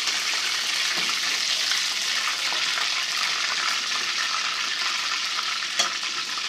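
Hot oil sizzling steadily in a pan of shallow-frying minced-beef kababs, with a light click about a second in and another near the end.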